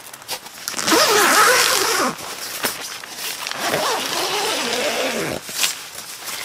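Nylon tent door zipper being pulled in two long strokes, the first about a second in and the second around three and a half seconds in, each with a wavering rasp.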